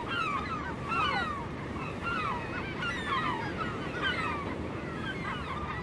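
A crowded seabird colony, many birds calling at once with short calls that fall in pitch, over the steady wash of surf against the rocks.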